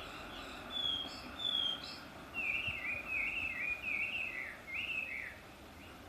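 A songbird singing at dawn: two short, high whistled notes, then a quick run of repeated warbling phrases that rise and fall, in full song.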